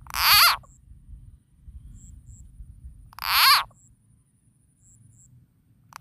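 Frog call used to lure frogs closer: two short croaks about three seconds apart, each lasting about half a second, with a third starting right at the end.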